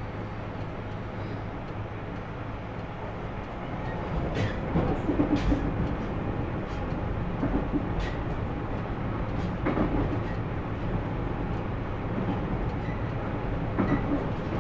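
JR Kyushu 813 series electric train running, heard from inside the car: a steady low rumble and hum that grows louder about four seconds in, with the wheels knocking and clattering over rail joints at uneven intervals.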